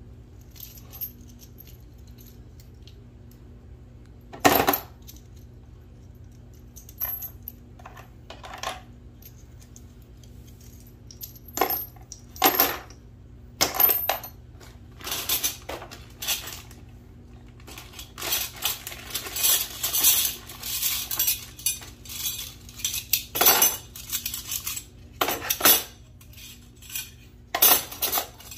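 Small metal PEX plumbing fittings and crimp rings clinking and rattling as they are handled and sorted, in scattered sharp clinks with a busier run of rapid rattling about two-thirds of the way through.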